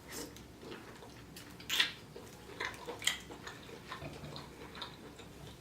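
Faint wet eating sounds from someone chewing saucy seafood-boil food: soft mouth clicks and smacks, with two sharper clicks about two and three seconds in.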